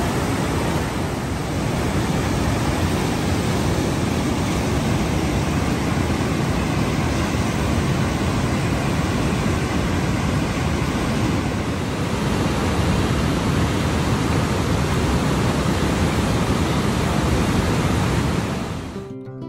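Whitewater river rushing through rapids and over a low waterfall: a loud, steady roar of water that fades out near the end.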